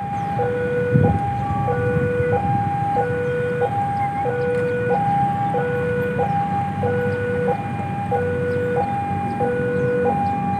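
Railway level-crossing warning alarm sounding, an electronic signal alternating steadily between a high and a low tone, each a little over half a second, over a low steady rumble.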